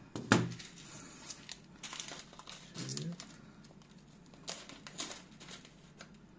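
Light plastic clicks and knocks as the magazine is slid out of an XK918 all-plastic toy airsoft pistol and set down on the table, the sharpest click about a third of a second in, followed by scattered soft rustles and clicks of handling.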